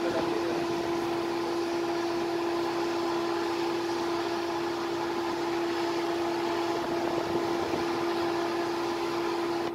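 Steady hum of a standing locomotive's cooling blowers and auxiliary machinery: a constant mid-pitched drone over an even whirr, unchanging throughout.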